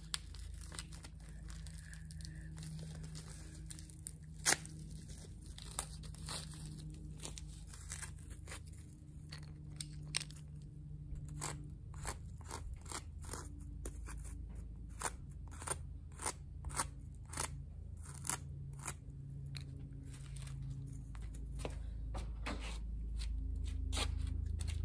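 Foam being worked by hand: irregular sharp crunching clicks over a low steady hum, which grows louder near the end.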